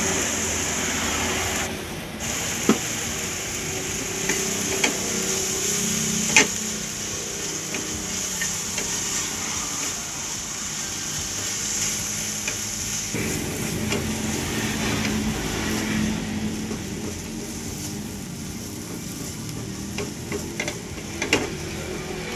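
Diced chicken and onion sizzling in a non-stick frying pan as a spatula stirs and scrapes them around, with a few sharp knocks of the spatula against the pan.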